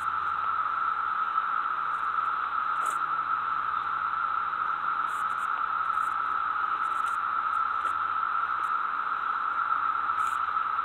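Dense chorus of periodical cicadas (17-year cicadas) in the trees: one steady, high drone that neither rises nor falls.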